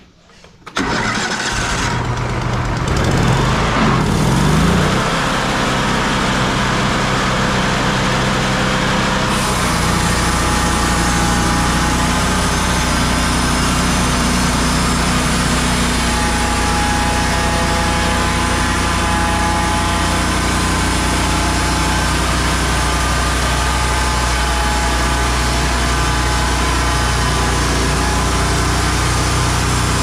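Wood-Mizer LT35 sawmill's Kohler engine starts about a second in, rises in pitch as it revs up, then runs steadily at cutting speed. From about nine seconds in, a hiss is added as the band blade runs and the head saws a board off a walnut log.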